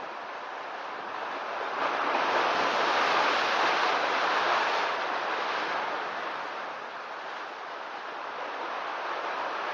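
Ocean waves crashing against rocky cliffs: a surge of surf swells about two seconds in, holds for a few seconds, then fades back into a steady wash of sea noise.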